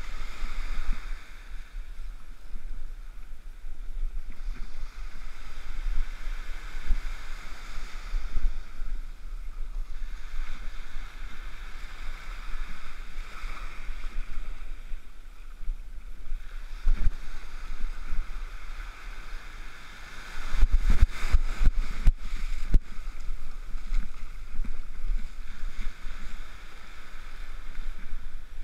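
Small surf waves washing in and out on a beach, the hiss swelling and fading every few seconds, with wind rumbling on the microphone. About two-thirds of the way through comes a brief cluster of sharp knocks.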